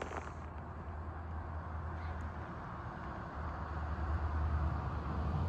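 A road vehicle approaching, its engine a low steady hum with road noise that slowly grows louder.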